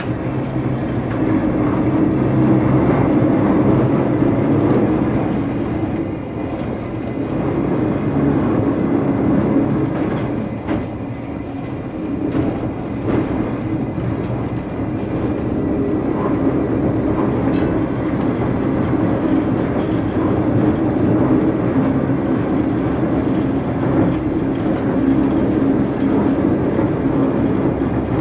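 Electric tram built in 1904, heard from inside the car while it runs at medium speed: a steady running rumble with occasional clicks.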